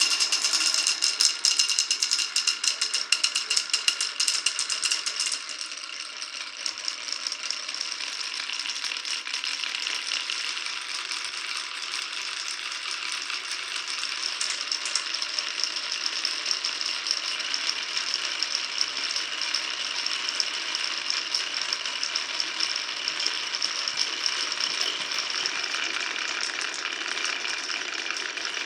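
Marbles rolling and clattering along a marble run's tracks: a dense, loud run of rapid clicks for the first five seconds or so, then a steady, slightly quieter rolling rattle that keeps going.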